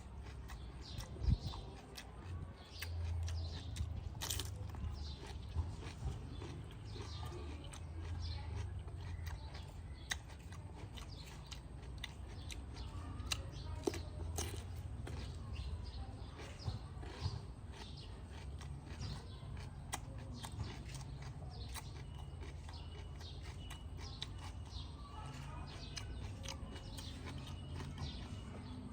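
A person chewing and eating, with smacking mouth sounds and scattered small clicks and crunches over a low steady rumble.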